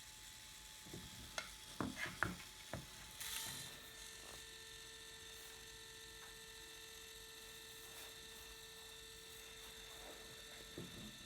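Canon Ivy mini photo printer printing a photo: a few light clicks, then the small feed motor whirring steadily for about seven seconds before stopping near the end.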